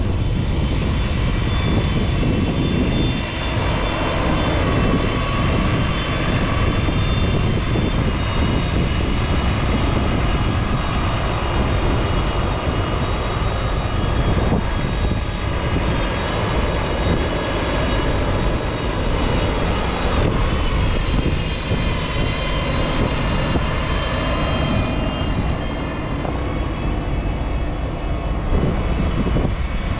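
McCormick X7.624's 6.7-litre six-cylinder diesel running steadily under load as the tractor pulls a five-furrow reversible plough through the soil close by.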